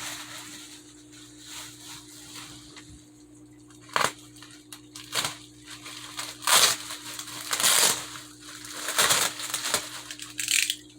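Packaging being handled and crinkled while a box is unpacked: irregular rustling and crackling, with a sharp crackle about four seconds in and louder rustles in the second half.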